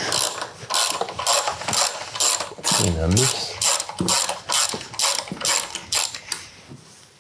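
Large hand ratchet wrench being worked back and forth to loosen a bolt, its clicking strokes coming about three a second and stopping a little after six seconds in.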